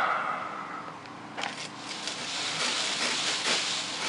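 Dry palm fronds rustling and scraping as they are cut with a hand pruning tool: a sharp click about a second and a half in, then an uneven dry rustle with scattered small snaps.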